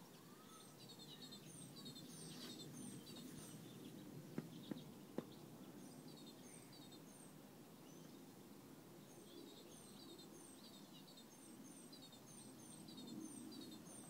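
Near silence with faint birdsong: short, high, falling chirps in small clusters that recur through most of the stretch. A few soft clicks come around four to five seconds in.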